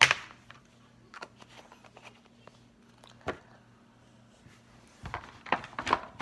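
Handling noises from small plastic slime containers: a sharp knock right at the start, scattered light taps and clicks, and a cluster of knocks and rubbing near the end as the recording phone is handled. A faint steady hum runs underneath.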